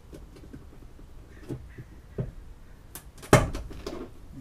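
Van ceiling panel being worked loose by hand: a few light knocks and taps, then one loud, sharp knock a little past three seconds in.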